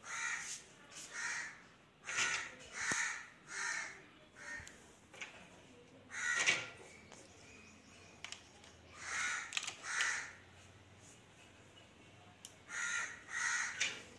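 Crows cawing: repeated short, harsh calls, mostly in groups of two or three, with pauses of a couple of seconds between groups.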